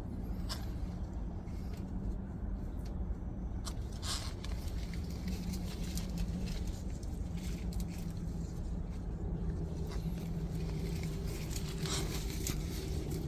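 Steady low engine-like hum, with scattered light clicks and rustles over it.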